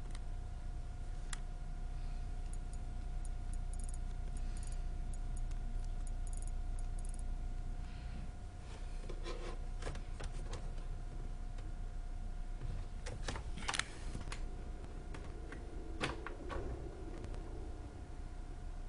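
Scattered clicks and small rattles of a USB cable and PSP handheld being handled and plugged in, with a cluster of clicks about halfway through and more near the end, over a steady faint hum.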